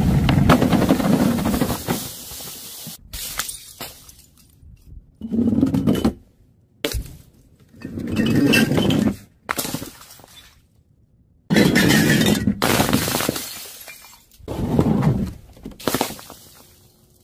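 Bottles and other filled containers dropped from a height onto pavement, breaking and bursting one after another. There are about seven separate crashes, each a sudden impact followed by a second or so of clattering, scattering debris.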